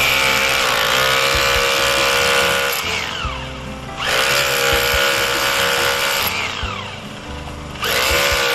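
2-26 DFR hammer drill's electric motor run up in repeated trigger pulls: each time it rises quickly to a steady whine, holds for about three seconds, then winds down in pitch. Two full runs, with a third starting near the end.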